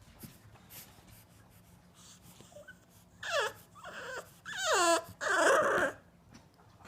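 French bulldog whining: four whines in quick succession starting about three seconds in, most falling in pitch, the last one rougher.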